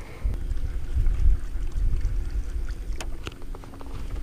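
Wind rumbling on the microphone over a steady low hum on the boat, with two sharp clicks about three seconds in.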